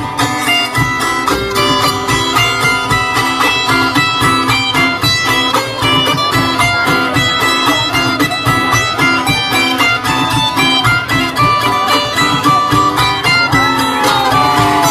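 Live band playing an instrumental passage: quick, repeating plucked guitar notes over a steady beat. Near the end a gliding, wavering melody line comes in.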